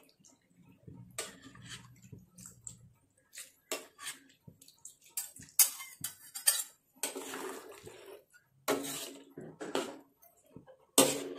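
Metal spatula clinking and scraping against a ceramic bowl and a steel wok as eggs are scraped out of the bowl into a braising duck stew, which is then stirred. There is a string of sharp clinks, with a few longer scrapes in the second half.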